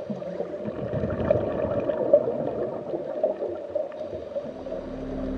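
Muffled bubbling and gurgling water, like underwater ambience, with a low steady hum coming in near the end.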